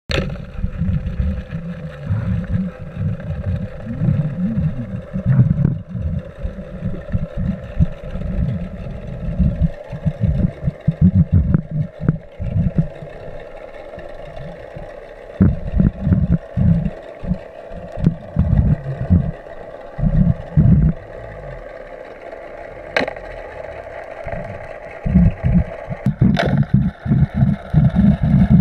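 Boat motor heard underwater as a faint steady hum, under heavy irregular low rumbling of water buffeting the camera housing. Two sharp knocks come in the last third.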